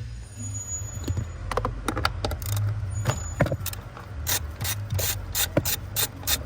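Socket ratchet clicking as a 10 mm fastener on the accelerator pedal mount is undone: a run of quick, evenly spaced clicks starting about a second and a half in.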